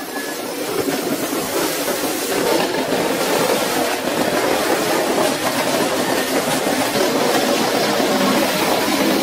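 Woodworking machine sawing boards into thin slats: a dense, steady mechanical rattling din that builds over the first couple of seconds and then holds.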